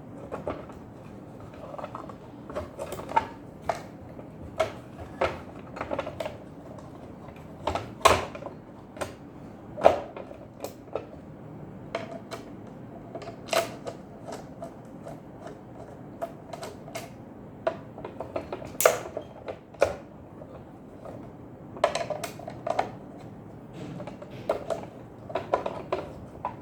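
Irregular clicks and knocks of a Maharaja sandwich maker's plastic and metal parts being handled and fitted back together by hand, some taps sharper and louder than others.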